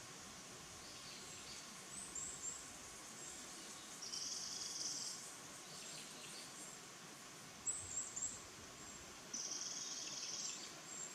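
Bird song in two phrases, each a rapid rattling trill about a second long, starting about 4 s in and again about 9 s in, with short high thin notes between them. The uploader takes the singer, with a question mark, for a Japanese robin.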